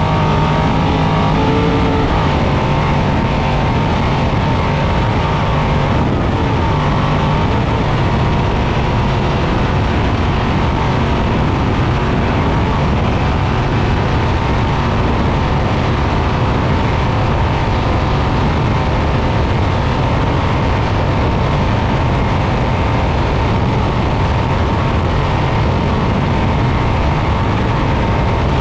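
A 1000-plus-horsepower all-wheel-drive Trophy Truck heard from inside the cab at race speed. Its engine and drivetrain run hard under a loud, steady rush of noise. The engine's pitch holds steady for the first several seconds, then sinks into the even rush.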